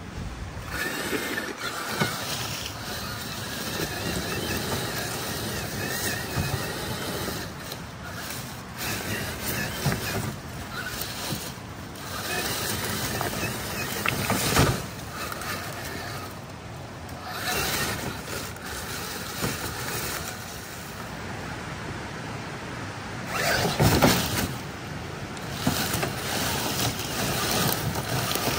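Axial SCX6 Honcho 1/6-scale RC crawler's electric motor and drivetrain whining in spurts as it crawls over rocks, with dry leaves crunching under its tyres. A sharp knock comes about halfway through, and a louder scrape and crunch about three quarters in.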